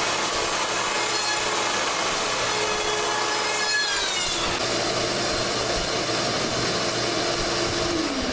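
Handheld router running and cutting a scarf slope into white ash boards, a steady loud cutting noise. Near the end its motor is switched off and its whine starts falling in pitch as it winds down.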